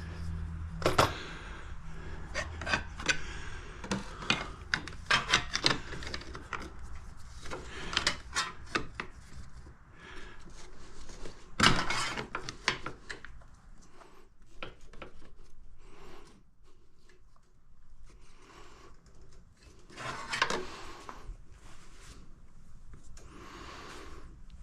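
Hand work on parts of a quad's engine: a scattered series of clicks and knocks, with rubbing and scraping between them as a part is pushed into place.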